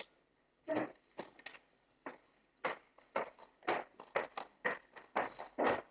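High-heeled footsteps on a wooden parquet floor, a steady walking pace of about two steps a second, beginning about two and a half seconds in after a few scattered knocks.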